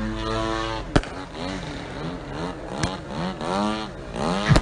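Extreme Flight 105-inch Slick RC aerobatic plane's gas engine revving up and down in quick swoops, its pitch rising and falling several times a second. Sharp cracks sound about a second in and near the end.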